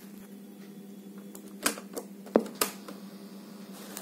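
A Philips portable cassette recorder being loaded and started: about halfway through come four sharp mechanical clicks and clunks as the cassette door shuts on the tape and the play key goes down. A low steady electrical hum runs underneath.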